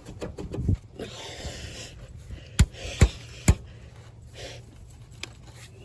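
Three sharp knocks about half a second apart, after some rustling handling noise, as a new alternator is being worked onto its mount in a truck's engine bay.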